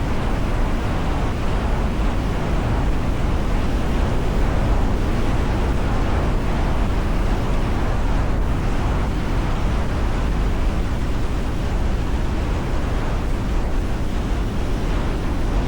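Strong wind buffeting the microphone: a steady, loud rushing with a heavy low rumble.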